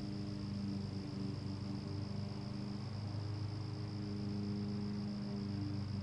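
Distant lawn mower engine running steadily, its hum swelling and fading a little in strength, with a steady high-pitched insect trill over it.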